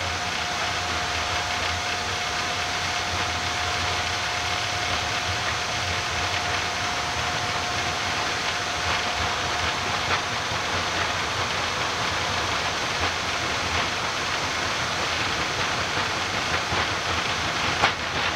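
Boeing 787-9 flight deck during the high-speed takeoff roll at takeoff thrust: a steady, dense rush of engine and airflow noise. A faint steady whine fades out about halfway, light knocks come now and then, and one sharp knock comes near the end.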